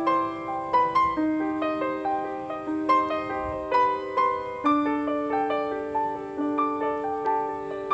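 Background piano music: a gentle melody of single notes over held lower notes.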